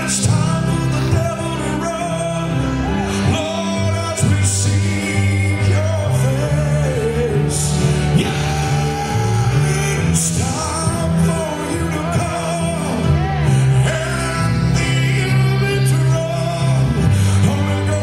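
Live gospel worship music: a man singing and ad-libbing into a handheld microphone over a praise band with a steady bass line and drums, with a few cymbal crashes.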